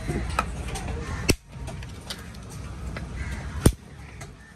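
Heavy cleaver chopping a conch shell on a wooden block: two hard strikes about two and a half seconds apart, with lighter taps and cracks of shell between them.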